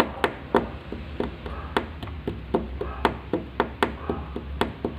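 Hands and fingers drumming on a tabletop: a quick, uneven run of taps and knocks, about four a second, some louder than others.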